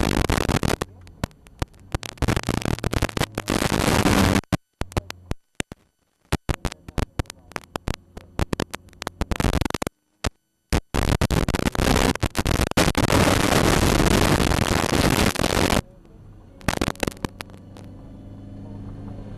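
Harsh noise across the whole range in the onboard recording of a Ginetta G40 race car, cutting in and out abruptly with gaps of dead silence: the recording breaking up. Near the end the noise drops away and the car's engine comes through faintly, growing louder.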